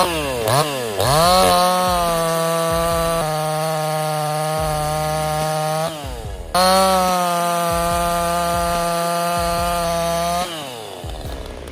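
Small two-stroke chainsaw engine of the 46 cc Craftsman S205 tree-cutting tool, blipped up and down a few times, then held at full throttle at a steady high pitch. The engine dips briefly about six seconds in, runs at full speed again, and winds down near the end.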